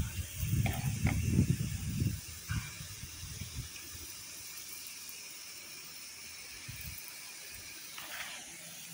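Pop-up lawn sprinklers spraying water with a steady hiss, briefly louder about eight seconds in. Low rumbles sound over the first two seconds.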